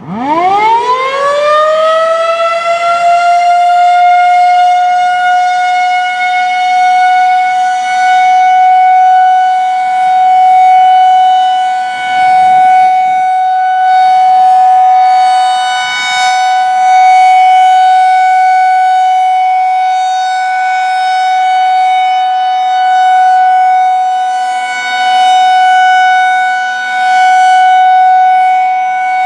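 Federal Signal 2001-SRN "roundback" tornado siren starting up: it winds up over about three seconds to a steady high tone, then holds it as a steady alert signal. The loudness swells and fades every few seconds as the rotating horn turns.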